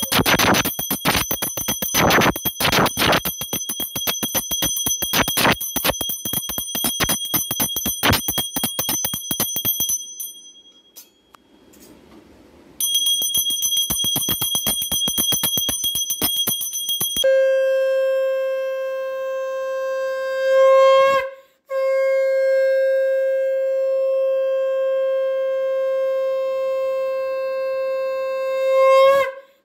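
A puja hand bell rung rapidly for about ten seconds; after a short pause it rings on briefly. A conch shell (shankha) is then blown in long, steady notes, broken once for breath, each note swelling near its end.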